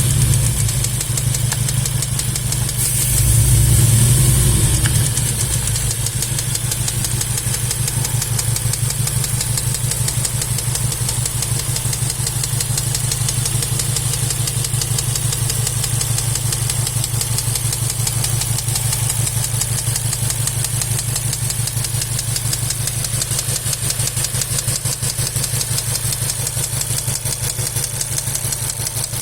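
Volkswagen Golf 7 R's turbocharged four-cylinder engine idling with a fast, regular clacking, the abnormal engine noise being diagnosed. The revs rise briefly about three seconds in, then settle back to idle.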